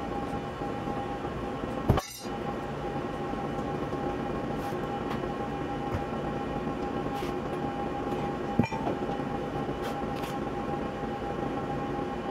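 A machine running with a steady, even whine, with a sharp click about two seconds in and another near nine seconds.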